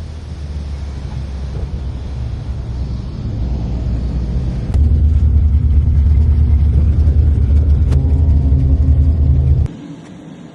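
A steady, low engine rumble that grows louder about halfway through, then cuts off abruptly near the end.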